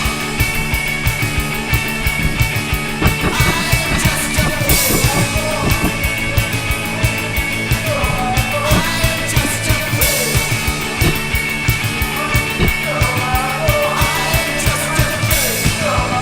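Loud rock music with a fast, driving drum beat and singing.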